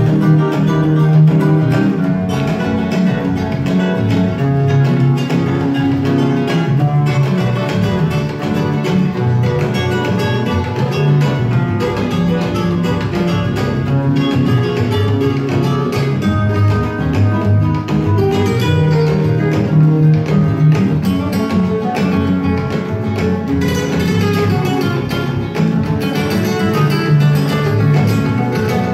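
Guitar music playing from a vinyl record on the turntable.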